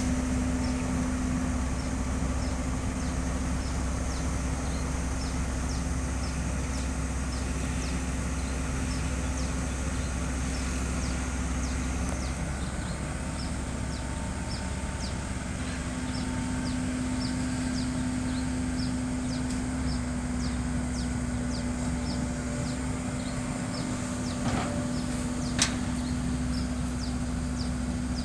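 Heavy diesel engine idling steadily. A faint high chirping repeats about twice a second over it, and there are two sharp clicks near the end.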